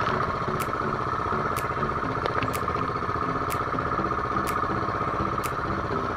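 The small engine of an outrigger fishing boat running steadily under way, with a faint sharp tick about once a second.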